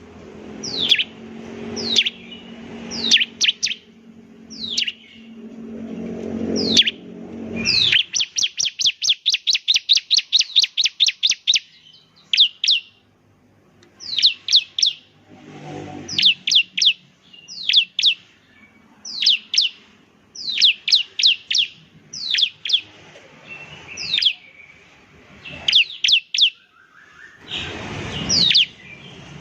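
Bar-winged prinia (ciblek) singing: sharp, high chirps that each sweep quickly downward, given singly or in quick groups. About eight seconds in, they run into a fast, even trill of about eight notes a second that lasts some four seconds.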